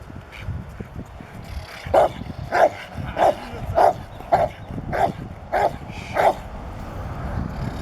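Young Rottweiler in early protection training barking in a steady series of eight barks, about one and a half a second, starting about two seconds in.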